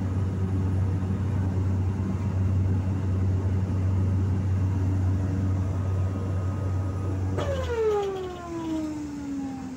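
Light aircraft's engine droning steadily inside the cabin, then cutting out abruptly about seven seconds in, followed by a whine that falls steadily in pitch as it winds down: an engine failure in flight.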